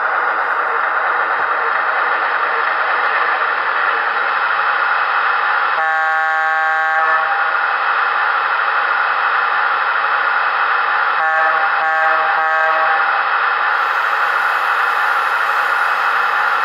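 MTH HO-scale PRR GG1 model locomotive's DCS onboard sound system through its small speaker: a steady electric-locomotive running hum, with one long air-horn blast about six seconds in and three short horn toots around twelve seconds. A higher hiss joins near the end.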